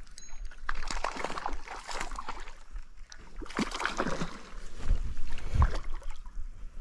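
Water sloshing and splashing, with irregular clicks and knocks of rod and reel handling, as a hooked trout is played and reeled in. A few heavier low thumps come near the end.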